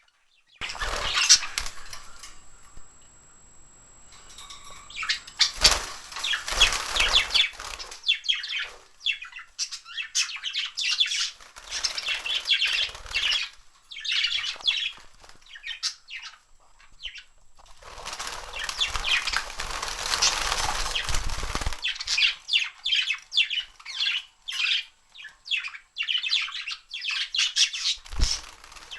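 A flock of pet budgerigars chirping and chattering, with flurries of wing flapping as the birds take fright: one near the start, one around six seconds in, and a longer one from about eighteen to twenty-two seconds.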